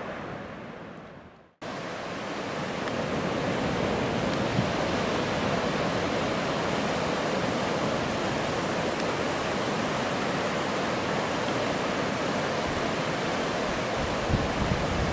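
Ocean surf breaking and washing up a sandy beach, a steady rushing noise. It fades out briefly about a second and a half in, then comes back.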